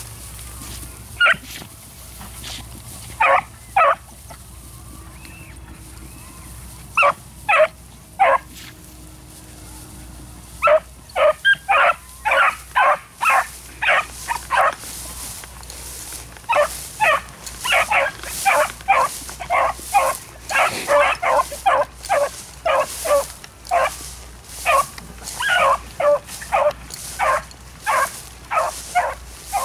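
Rabbit-hunting beagles baying: a few scattered barks at first, then from about eleven seconds in a fast, steady run of barks, several a second, the sound of hounds giving tongue as they run a rabbit's scent trail.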